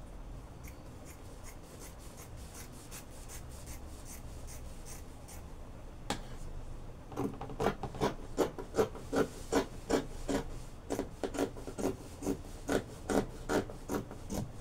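Fabric scissors cutting through adire cloth lying on a tabletop. Faint, quick snips in the first half, then from about halfway a steady run of louder cuts, about two a second.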